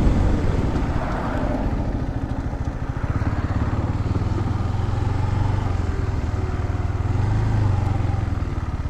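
KTM 390 Adventure's single-cylinder engine running at low revs with an even, rapid firing pulse, easing off in the first second or two and then running steadily.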